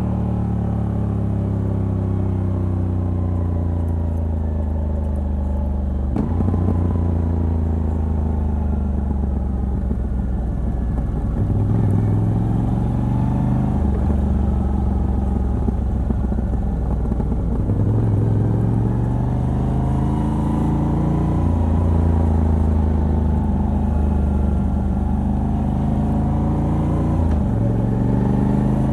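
Moto Guzzi V85TT's air-cooled transverse V-twin running through a stock exhaust with a decat pipe, heard from the rider's seat. The engine note falls steadily over the first few seconds, then rises and falls again several times with abrupt steps in pitch, as on gear changes.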